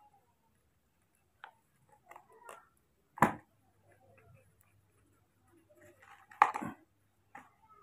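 Two sharp knocks, about three seconds apart, with a few faint clicks and taps between, as hand-held objects are handled.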